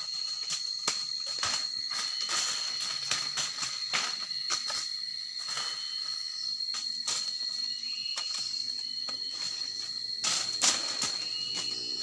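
A steady high-pitched insect drone holds on one note throughout. Over it run irregular rustles and knocks of leaves and twigs from the handheld camera being moved through undergrowth, loudest about ten and a half seconds in.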